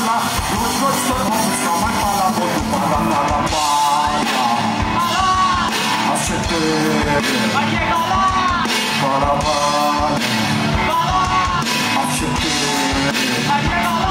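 Live rock band playing, with a man singing lead over a drum kit and the rest of the band.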